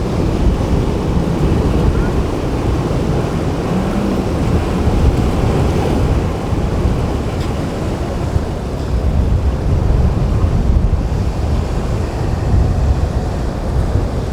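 Rough inlet surf and breaking waves, with wind buffeting the microphone in a heavy, uneven rumble.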